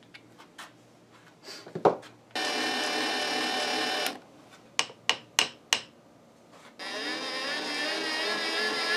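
A small electric motor on a milling machine runs twice: for about a second and a half, stopping abruptly, then again from near the end. Between the two runs are light clicks and a sharp knock of steel tools on the vise, then four quick sharp clicks.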